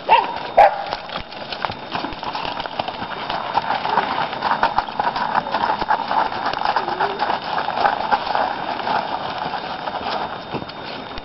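Suffolk Punch draft horse trotting in harness, its hooves clip-clopping on a dirt and gravel drive while the two-wheeled cart rolls along behind. Two louder short sounds stand out in the first second.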